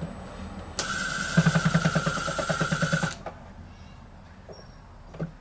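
Small electric screwdriver running for about two seconds, backing a tiny screw out of a TV's back panel: a steady motor whine with a fast even pulse that starts and stops suddenly, followed by a few light clicks.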